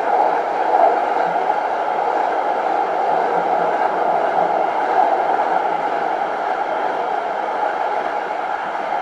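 Munich Type P tram in motion, heard from inside the car: a steady running noise of the tram travelling along its track, even in level with no sudden knocks.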